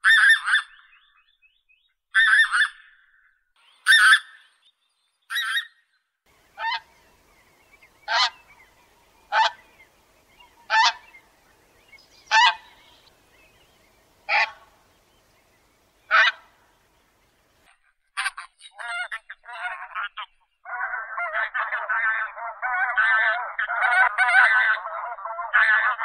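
Taiga bean goose calling: a few honks, then a series of single honks about one and a half seconds apart. From about twenty seconds in, a flock calls together without a break.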